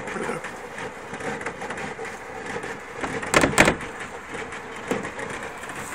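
Overheated turbo Ford Fiesta with a steady chuffing, hissing noise, likened to a little train, as its cooling system boils over with the electric radiator fan dead. A loud sharp double knock comes about three and a half seconds in.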